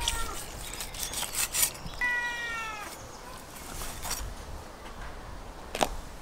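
A cat meowing: one falling meow of just under a second about two seconds in, with the end of another right at the start. Scattered clicks of handling and cutting meat, and a sharp knock near the end.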